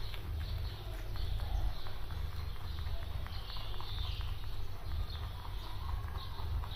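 Young rabbits chewing fresh okra pods, a few faint crunches over a steady low hum.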